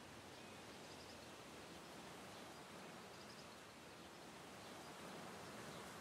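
Near silence: faint outdoor ambience, a steady hiss with a few faint, distant bird chirps.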